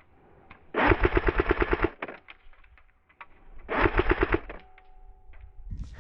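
Lancer Tactical Nightwing airsoft rifle firing two rapid full-auto bursts: one about a second long, then a shorter one a couple of seconds later.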